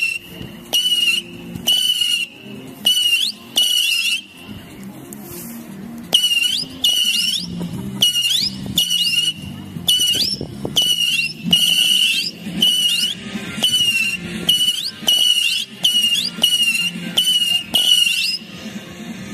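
A consumer firework, One Million Fireflies, firing its whistling missiles in quick succession, about one a second. Each one gives a short shrill whistle that glides and settles onto one steady pitch. There is a short lull about four seconds in.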